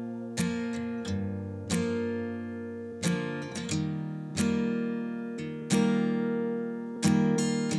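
Background music: acoustic guitar strumming chords, a fresh chord about every second, each ringing and fading.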